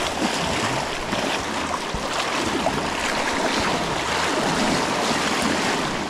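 Rushing river water: a steady, even rush of current running past.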